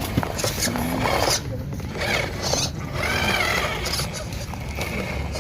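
Short scratchy bursts of a small electric motor and gears, like an RC crawler truck being driven in spurts, with faint voices.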